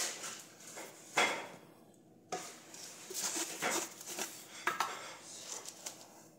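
Small glass spice jars with metal lids being handled on a kitchen counter: a series of clinks and short rattles.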